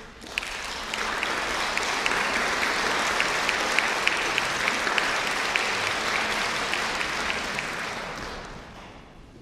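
Audience applauding, starting about half a second in, holding steady and fading away near the end.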